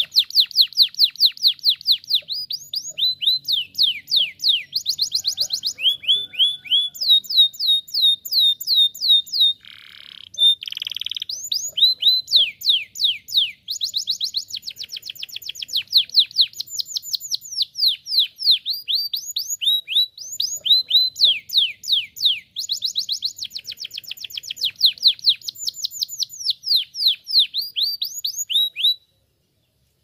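Domestic canary singing a long song of rapid trills: runs of quickly repeated, falling high notes that change speed from phrase to phrase, with one brief harsher note about ten seconds in. The song breaks off abruptly just before the end.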